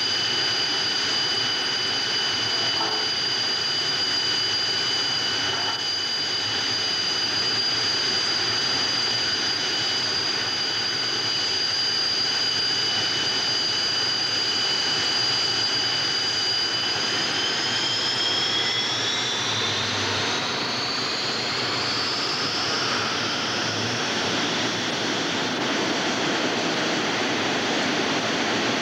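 Two-seat MiG-21's jet engine running on the ground: a steady rushing noise with a high whine on top. About 17 seconds in, the whine climbs in pitch over several seconds as the engine speeds up, then holds at the higher pitch.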